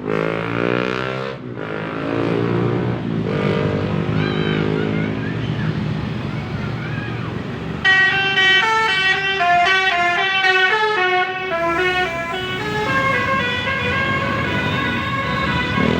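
A bus passing with its engine note sliding in pitch, then about halfway through a telolet horn starts suddenly: a set of air horns sounding together in a quick stepped tune.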